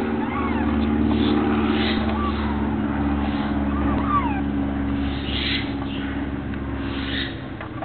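Kittens giving several short, thin, high mews while nursing, over a steady low rumble that fades near the end.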